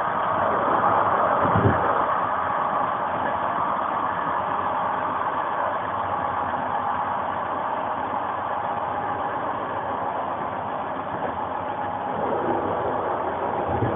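Intercity passenger train heard from inside its coach: a steady running rumble of wheels on rail. A short low thump comes about a second and a half in and another near the end.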